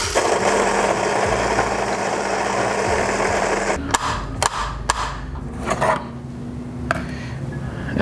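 Fellow Ode grinder's 64 mm flat burrs grinding a single 18 g dose of coffee beans: a dense crunching noise over a steady motor hum that cuts off suddenly about four seconds in. Several sharp knocks and taps follow as the catch cup is taken out and set down.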